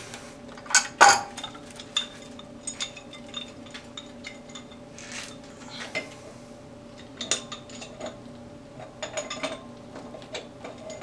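Metal clinks and knocks of a wrench on the brass fitting of a thermal expansion tank as the fitting is tightened, with the loudest knocks about a second in and lighter scattered clicks after. A faint steady hum runs underneath.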